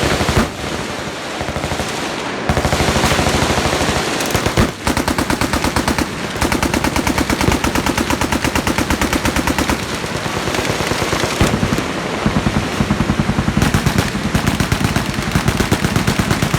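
Several machine guns firing at once in long, overlapping strings of fully automatic fire: a dense, continuous stream of rapid shots with no real pause.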